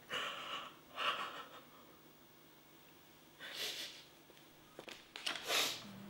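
A woman sniffling and breathing heavily while crying: four short breathy bursts, the last two sharp sniffs.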